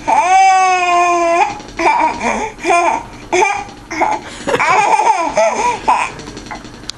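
Young child laughing and squealing: one long, high, held squeal about a second and a half long, then a run of short bursts of giggling laughter.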